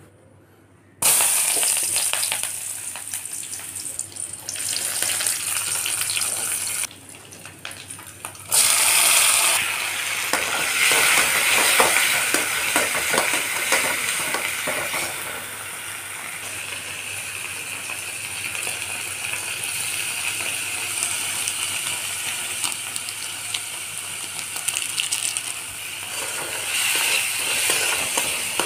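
Chopped onion, tomato and garlic sizzling in hot oil in an aluminium kadai, with a steel spoon stirring and scraping the pan. The sizzle starts suddenly about a second in as the onion hits the oil, dips briefly, then comes back loud and keeps going.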